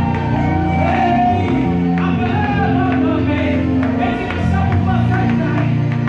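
Live gospel music: a female lead singer sings long, sliding notes into a microphone over a band with keyboards, with backing singers.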